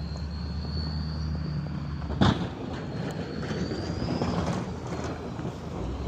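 A motor running with a low steady hum and a high whine that rises slowly, then rises again near the end. A sharp knock comes just after two seconds in, and the running turns rougher after it.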